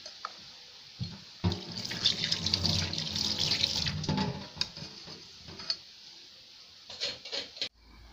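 A metal spoon stirring a thin white batter in an aluminium pot, sloshing and splashing for a couple of seconds, then a few sharp clinks of the spoon.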